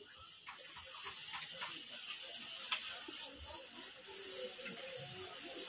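Steam hissing on a gas stove, growing steadily louder, with a few clinks of steel cooking pots and one sharp click near the middle.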